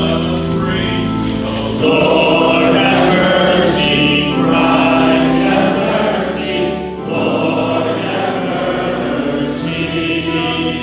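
Church congregation singing a hymn together, with organ accompaniment holding steady chords underneath.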